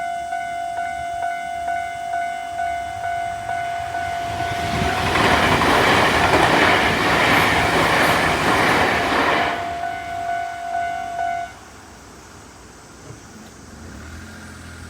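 Japanese level crossing warning bell ringing in a steady pulsing rhythm while a Tobu Isesaki Line train passes, its loud rumble and clatter building about four seconds in and dying away about six seconds later. The crossing bell then cuts off abruptly about two-thirds of the way through, as the crossing clears.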